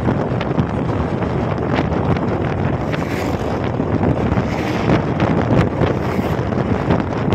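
Wind buffeting the microphone on a moving motorcycle, a steady loud rush with engine and road noise underneath.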